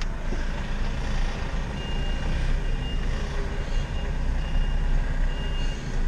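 Truck's reversing beeper sounding a short high beep about once a second, starting a couple of seconds in, over the steady low running of the truck's engine as it backs into position.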